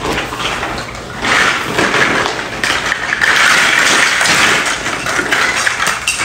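Chunky plastic building blocks rattling and clattering as they are shaken and tipped out of a zippered bag onto a rug. The rattle starts about a second in and keeps up to near the end.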